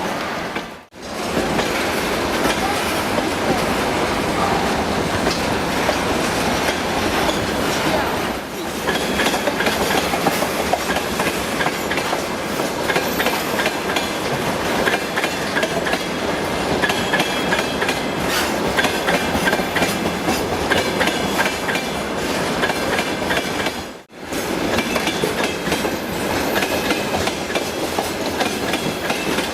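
Electric train passing at speed, its wheels clattering steadily over the rail joints, with a faint high wheel squeal in the middle. The sound drops out abruptly for a moment twice.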